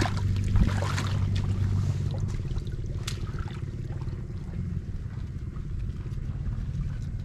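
Shallow water sloshing and splashing as a person wades and works a woven basket through the water among water hyacinth, with a few sharper splashes in the first few seconds, over a steady low rumble.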